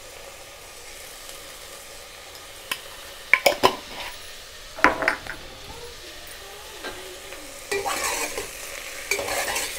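Chopped vegetables sizzling in a stainless steel pot, a steady hiss, with a few sharp clinks about three to five seconds in. Near the end the vegetables are tossed and mixed by hand in the pot, adding a louder rustling scrape.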